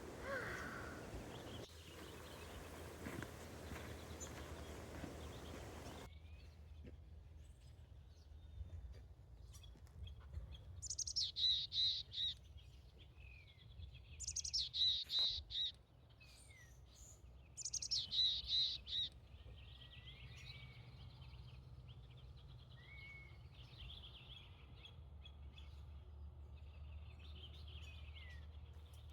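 A bird calling in three loud series of quick repeated high notes, a few seconds apart, with fainter chirps between. Before it, about six seconds of steady rushing noise that stops abruptly.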